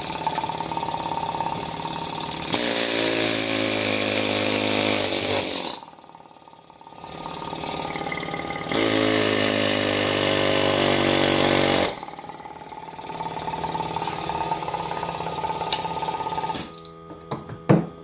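Pneumatic air chisel hammering in two bursts of a few seconds each, about two and a half and about nine seconds in, as it cuts into the copper windings of a small electric motor's stator held in a steel vise. It is running on a small pancake compressor at an air pressure the user thinks may be too low.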